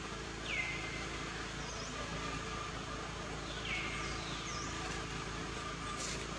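A high animal call that sweeps down and then levels off, repeated about every three seconds, over a steady low background hum.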